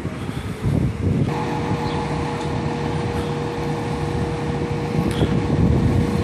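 Fire engine's diesel engine running with a steady low rumble in the firehouse bay. About a second in, a steady high tone starts and holds.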